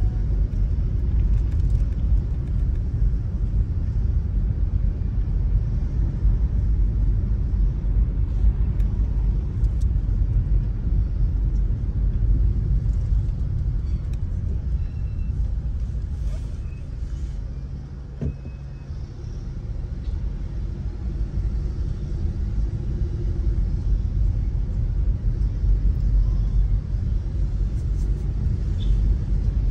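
Low, steady road and engine rumble heard inside a car driving slowly. The rumble drops for a couple of seconds a little past the middle as the car slows, then builds again as it pulls away.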